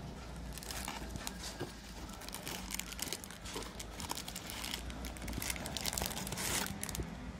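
Plastic candy wrappers of Chupa Chups Sour Belt sweets crinkling as a hand rummages through the box of individually wrapped strips, with a denser burst of crackling about six seconds in.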